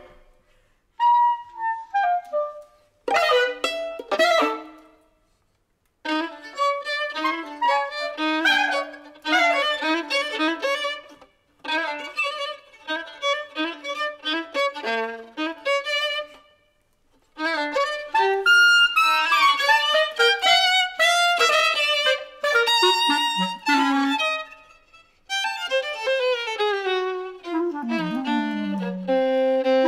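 Violin and clarinet duo playing live: quick runs of bowed and plucked violin notes in short phrases broken by brief pauses, with the clarinet's longer lines coming forward near the end.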